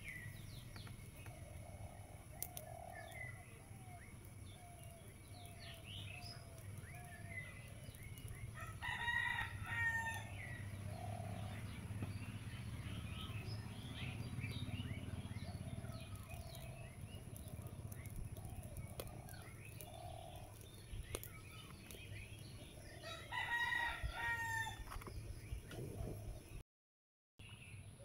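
A rooster crowing twice, about nine seconds in and again near the end, with other bird calls and short chirps in between.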